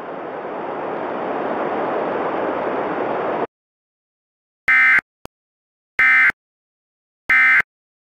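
A hiss of static that swells slightly and cuts off suddenly about three and a half seconds in. After a second of silence come three short, identical warbling data bursts of Emergency Alert System SAME code, evenly spaced: the end-of-message signal.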